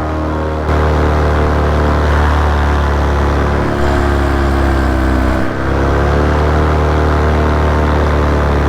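Paramotor engine and propeller running in flight, a steady drone whose pitch dips about four seconds in and climbs back as the throttle is eased and reopened, with background music underneath.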